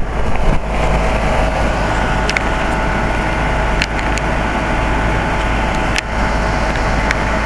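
2004 Carrier 3-ton heat pump outdoor unit running steadily in cooling mode: the compressor and condenser fan give a constant hum with a few steady tones above it. A few faint light ticks come through over it.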